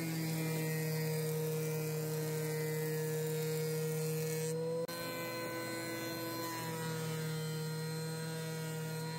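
Thickness planer running with a steady motor whine, broken briefly about five seconds in and then going on.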